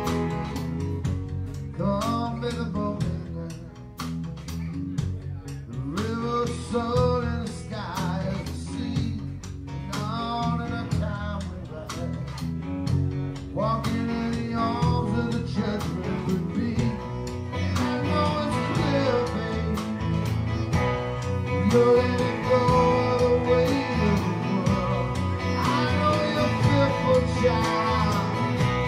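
A live rock band plays an instrumental passage: strummed acoustic guitar, electric guitar and a drum kit, with a melody line of bending, sliding notes coming in phrases every few seconds. The playing fills out and gets somewhat louder from about two-thirds of the way in.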